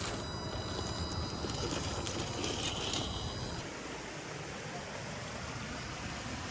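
Electric motor and gear drive of a 1/10-scale RC rock crawler whining, stopping a little past halfway, over a steady rush of flowing water.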